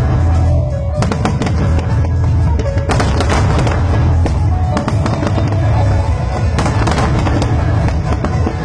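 Fireworks display: aerial shells bursting one after another with sharp bangs and crackling, over loud music with a heavy, steady bass.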